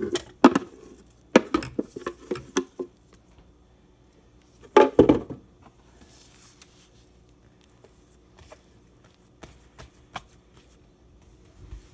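A dough scraper knocking and scraping against a plastic container as wet bread dough is worked out onto a floured countertop, with a louder thump about five seconds in. Afterwards only faint pats and taps as hands press the dough.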